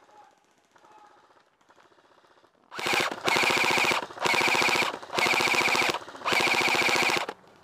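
Airsoft gun firing on full auto: four long bursts of rapid shots, about a second each with short pauses between, starting a little under three seconds in.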